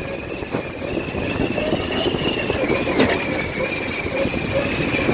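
ATV coasting downhill without throttle: a steady high-pitched whine that wavers slightly in pitch, over the crackle and rumble of the tires on the rough trail.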